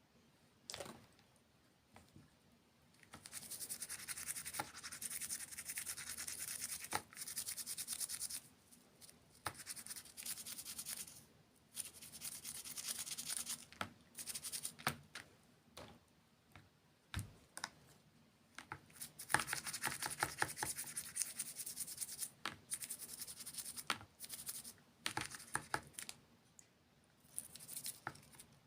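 Close-miked crunchy eating: several bursts of fine, rapid crackling crunches, each a few seconds long, with short pauses and a few single clicks in between.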